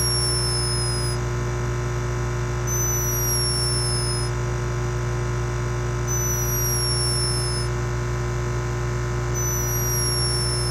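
Hummingbird snoring in its sleep: a thin, high, whistle-like note that slides slightly down in pitch over a second or so, four times, about every three seconds. Under it runs a steady loud hum, the camera's microphone gain turned up.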